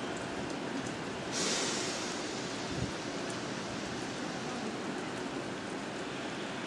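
Steady hiss of light rain falling on a wet station platform and tracks. A brief louder hiss comes about a second and a half in, and a short low thump follows near three seconds.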